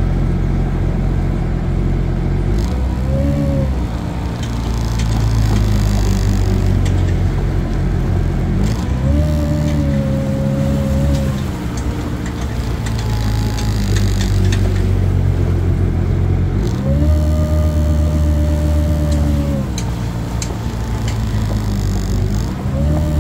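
Kawasaki Ultra 310LX-S jet ski's supercharged four-cylinder engine running at low speed, its pitch rising and settling back several times as the throttle is opened and eased off.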